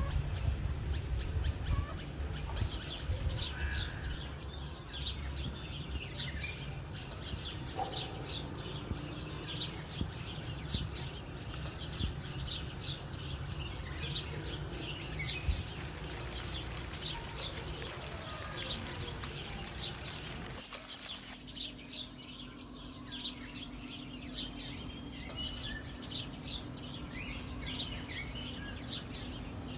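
Small birds chirping over and over, short high calls with no let-up. A low outdoor rumble sits under them until about two-thirds of the way in, then gives way to a steady low hum.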